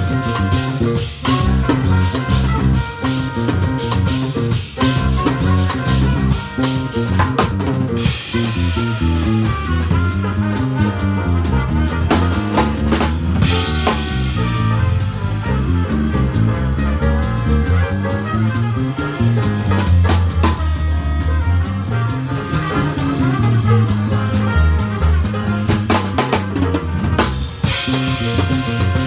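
Live band playing a jazz tune: electric bass playing a moving bass line under a busy drum kit with snare, kick and rimshots.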